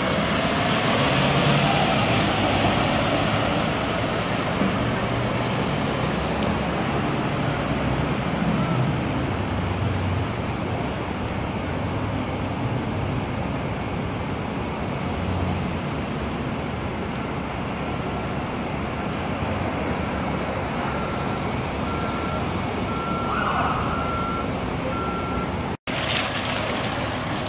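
An ambulance driving past, its noise swelling in the first few seconds, then steady street traffic noise. In the last third a row of short beeps at one pitch repeats.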